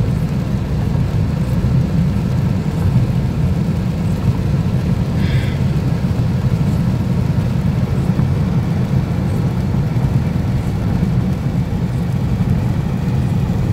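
Steady low rumble of a car driving at highway speed on wet pavement, tyre and engine noise heard from inside the cabin.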